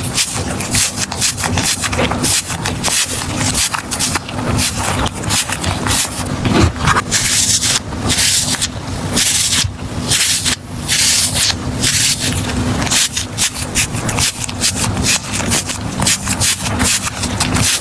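Handmade squishy stress balls being squeezed and rubbed by hand, a dense run of quick rubbing and scraping sounds with no pause.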